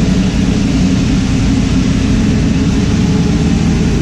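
Twin-turbo 376 cubic inch LS V8 running steadily at idle on the chassis dyno, with no revving.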